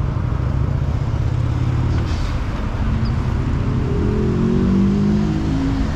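Gale-force wind buffeting the microphone, a loud, steady low rumble that rises and falls. About three seconds in, a pitched sound joins it for a couple of seconds.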